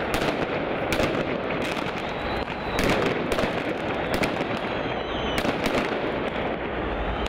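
Fireworks going off at street level in a dense run of rapid crackling snaps and bangs, with a couple of faint whistles.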